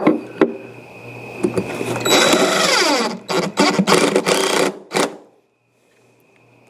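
Power drill driving screws: one longer run about two seconds in whose pitch sinks as the screw tightens, then several short trigger bursts.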